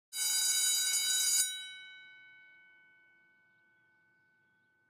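A bell-like chime sting for a news title: a chord of many ringing tones that holds steady for about a second and a half, then cuts back and rings out slowly over the next few seconds.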